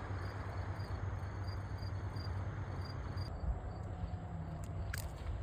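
Crickets chirping in a regular rhythm, about three chirps a second, over a steady rushing outdoor background with low rumble. The chirping stops about three seconds in.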